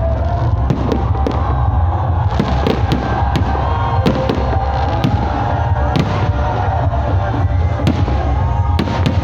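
Fireworks going off: many sharp pops and crackles over a constant heavy low rumble.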